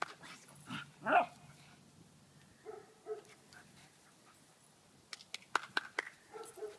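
Small dogs at play: one loud bark about a second in, softer whining sounds around three seconds in, and a run of quick sharp clicks near the end as they tussle.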